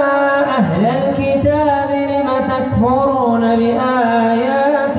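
An imam's solo male voice chanting Quran recitation in slow melodic tajweed style, holding long notes that rise and fall in ornaments.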